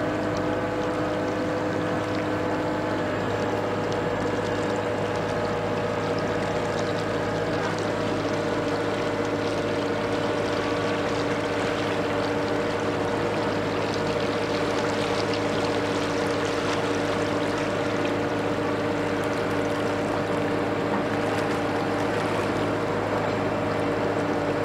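Heavy diesel engine running steadily, a constant low drone with several held tones that shift slightly in pitch about 8 and 13 seconds in.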